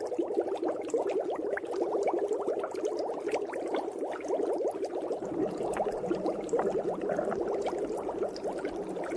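Continuous underwater bubbling, a dense stream of small bubbles popping and gurgling, with a little more low rumble in the second half.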